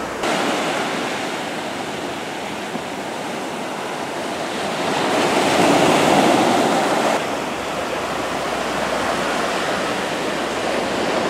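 Small sea waves breaking and washing onto a sandy beach, a steady surf rush that swells louder about halfway through and then eases.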